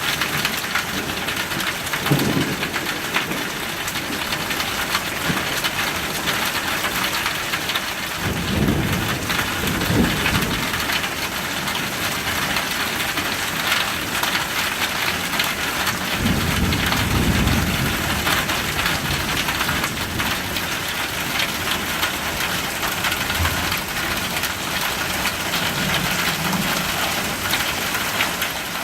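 Steady rain falling in a thunderstorm, with rolls of thunder rumbling low several times: a short one about two seconds in, a longer one near a third of the way through, the strongest past halfway, and a faint one near the end.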